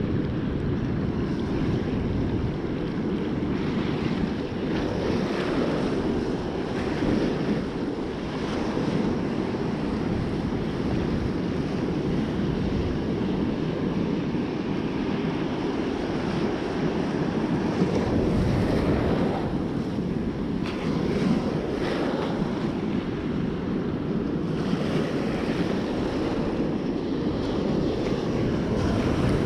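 Heavy storm surf breaking and washing up the beach, with wind buffeting the microphone.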